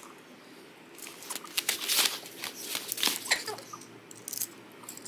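Plastic parts of a Transformers action figure clicking and rattling as it is twisted by hand from robot into car mode, with quick runs of sharp clicks from about a second in until near the end.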